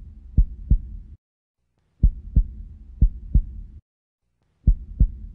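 Outro sound effect of low thumps in pairs, like a heartbeat, over a low hum. The bursts break off into silence about every two and a half seconds and start again.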